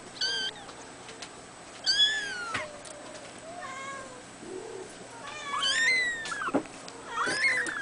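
Two-week-old Abyssinian kitten mewing about five times, high thin calls that rise and fall in pitch, some short and some drawn out.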